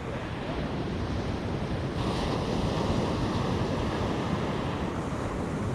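Ocean surf washing onto the beach, swelling about two seconds in, with wind on the microphone.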